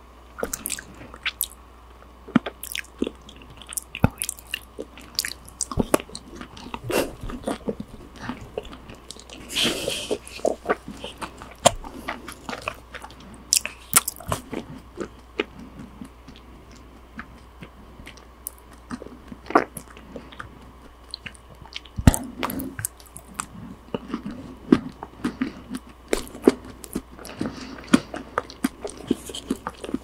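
Close-miked chewing and wet mouth sounds of someone eating raw sashimi and rice, with many sharp clicks and smacks and a brief louder noisy swell about ten seconds in.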